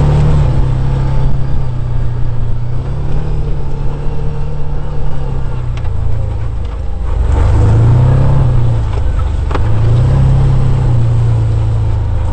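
Vehicle engine driving over rough ground, its note repeatedly rising and falling as it speeds up and eases off, with a few knocks from bumps.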